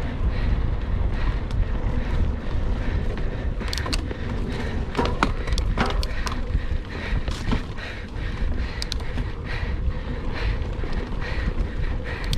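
Mountain bike ridden over a dirt trail, with wind rumbling on the camera microphone over the tyre noise. A quick run of sharp clicks and knocks from the bike jolting over bumps comes around the middle.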